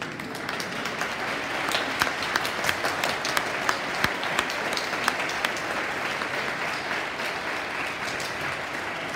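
Audience applauding, starting suddenly, with sharp, loud individual claps close by from about two to five seconds in; the applause eases off slightly near the end.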